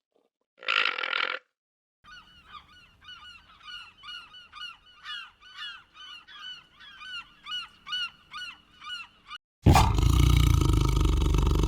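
Animal calls: one loud honk-like call about a second in, then a run of about twenty short, quieter chirps at roughly three a second, then a loud, harsh call near the end.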